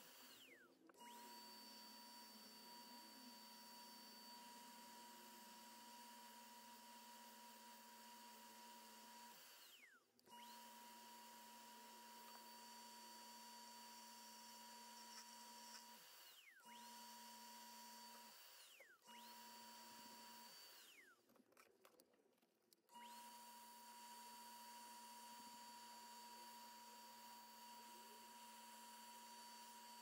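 Faint, steady high-pitched whine of a Rockler Excelsior mini wood lathe's motor. It cuts out five times, each time with a falling whine as it spins down, and starts again a moment later.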